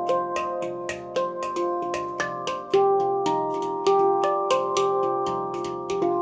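Instrumental music: a quick, even run of struck, ringing pitched notes, about five a second, over sustained tones.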